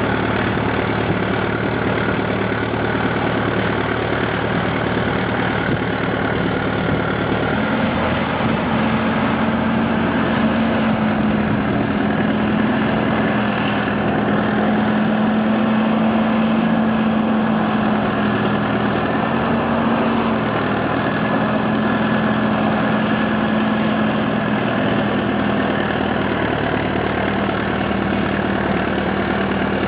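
A farm machine's engine running steadily. Its note rises and grows stronger about a quarter of the way in, then drops back near the end.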